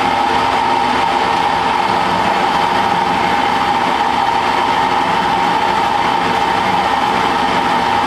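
Small manual metal lathe running steadily under power, turning a mild steel bar, with a steady whine.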